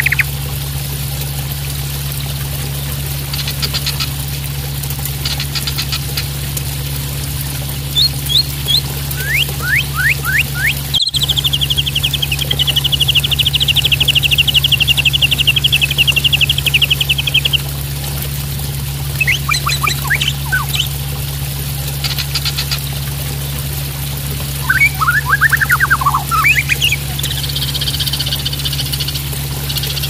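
Juvenile white-rumped shama (murai batu) singing in short phrases of quick sweeping notes and buzzy rattles, with a long rapid trill partway through, over the steady sound of splashing water.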